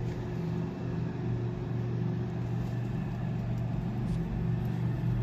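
A steady low mechanical hum with no breaks.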